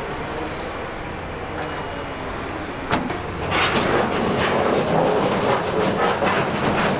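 A Liebherr R 960 high-reach demolition excavator tears down corrugated sheet-metal roofing. There is steady machine noise at first, then a sharp crack about three seconds in, followed by loud, continuous clattering and scraping of the metal sheets as they are ripped and buckled.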